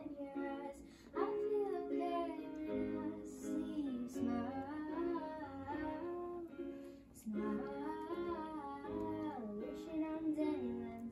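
Singing over an accompaniment played on an electronic keyboard.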